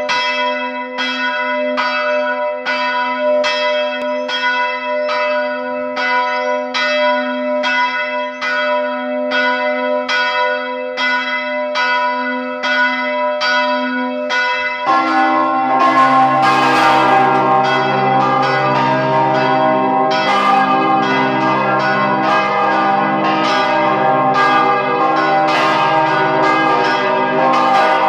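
Church bells of St. Vitus Cathedral swung by hand on ropes. One bell strikes steadily at about two strokes a second. About halfway through, a second, deeper bell joins, and the strokes overlap into a dense peal.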